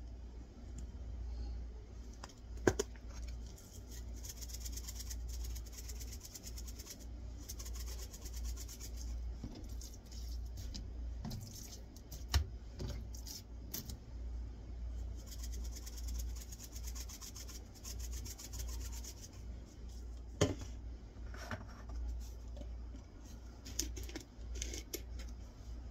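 Dry seasoning being shaken from spice shakers and rubbed into raw skirt steak: stretches of fine, rapid rattling, soft rubbing, and a few sharp clicks and taps of shakers handled and set down, over a low steady hum.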